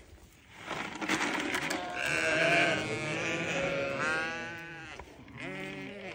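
Sheep and newborn lambs bleating, several calls overlapping, beginning about a second in after a brief lull.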